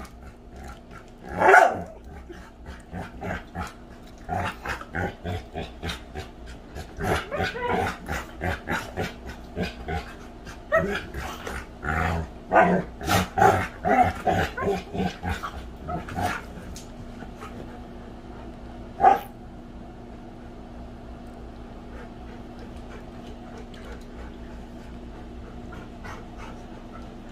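Two dogs play-fighting, with bursts of growling and barking that come thick and fast for most of the first sixteen seconds. One more loud bark comes a few seconds later.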